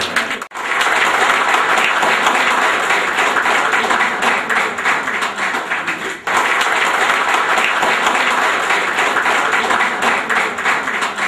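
An audience clapping, a dense and steady applause that breaks off for an instant about half a second in and again about six seconds in.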